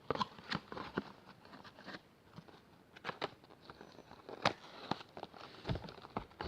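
Light, scattered clicks and taps of a smartphone's box, manual and accessories being handled and set down. The sharpest tap comes about four and a half seconds in.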